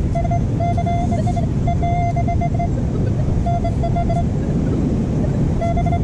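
Metal detector beeping in short, broken bursts of a single mid-pitched tone while it is passed over a pile of dug sand to find the target, over a steady low rumble. The beeps come repeatedly through the first few seconds, pause, then return near the end.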